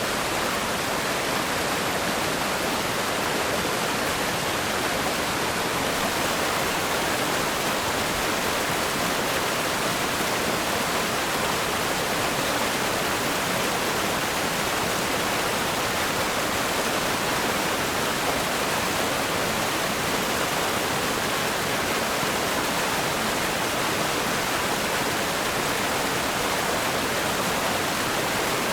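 River rapids rushing over rocks: a strong, steady flow of water.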